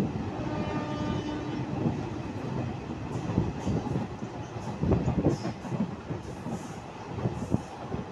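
Passenger train coach running at speed, heard from an open doorway: a steady rumble of wheels on the track with a few sharp clacks over rail joints around the middle. A faint held tone sounds for about the first two seconds.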